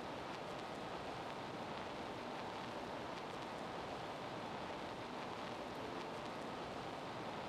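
Steady, even hiss with no changes.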